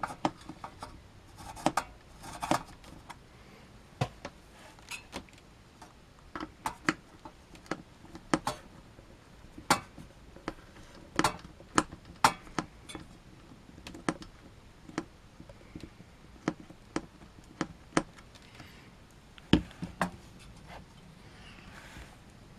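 Irregular small clicks and taps of metal screws and mounting hardware being handled and fitted while a CPU heatsink's bracket is screwed onto a motherboard.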